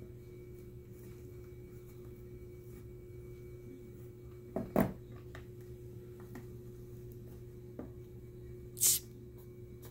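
Steady low electrical hum with two brief rustling scrapes, one about halfway through and a sharper, hissier one near the end.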